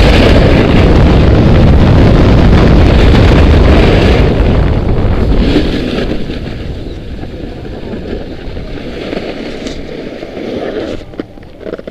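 Wind rushing loudly over a Contour action camera's microphone during a fast snowboard run. It fades away about halfway through as the rider slows, leaving a quieter rustle and a few short clicks near the end.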